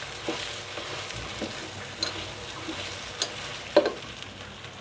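Kalijira rice with whole green chillies sizzling in hot oil and ghee in a pot, stirred with a spoon that knocks against the pot several times. The loudest knock comes near the end.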